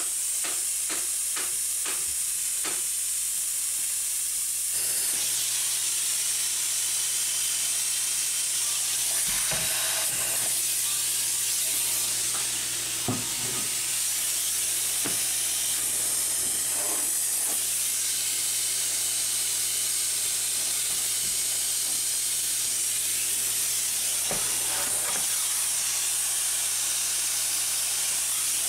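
Spray foam insulation gun spraying, a steady loud hiss that starts about five seconds in. A few light taps come before it.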